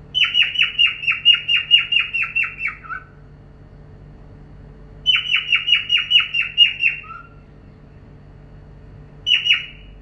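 Cockatiel calling in three bouts of rapid, repeated chirps, each note falling in pitch, about five a second. A long run comes first, then a shorter one in the middle, and a brief burst near the end.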